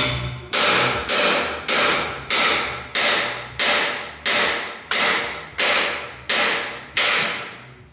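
Hammer blows on the steel air slide of a homemade steel smoker, knocking at the slide plate stuck in its freshly welded housing to drive it out. About a dozen steady strikes, roughly one and a half a second, each ringing out on the steel.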